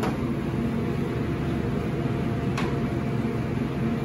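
Steady hum and rush of commercial kitchen ventilation fans, with one faint click a little past halfway.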